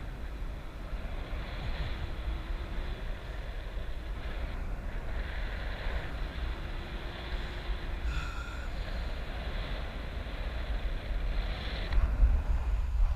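Wind buffeting an action camera's microphone in flight under a parasail: a steady, uneven low rumble that grows stronger near the end.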